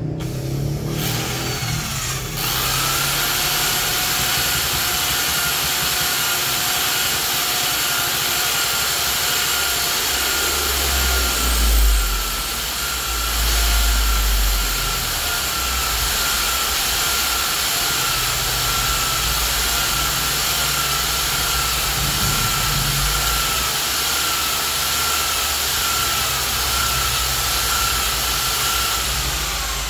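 Electric hand drill running steadily with a motor whine, spinning an engine valve against its seat through a hose coupling to lap it with abrasive compound. It starts about two seconds in and is briefly louder around twelve seconds in.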